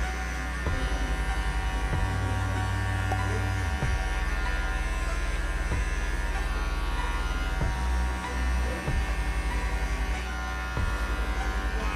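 Electric hair clipper fitted with a number-1 guard buzzing steadily as it cuts short hair up the side and back of a head in a fade, its hum shifting a few times as the blades are pressed into and drawn through the hair.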